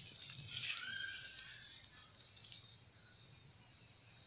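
Steady high-pitched drone of insects, with a faint short whistled call about a second in.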